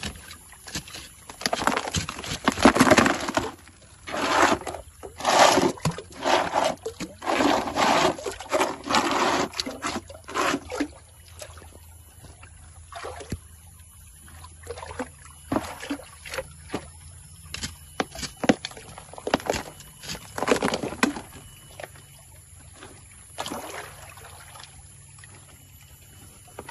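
Water and gravel sloshing in a plastic gold pan as material is washed in muddy water. The splashes come in bursts about every second through roughly the first ten seconds, then fade to scattered smaller splashes and knocks.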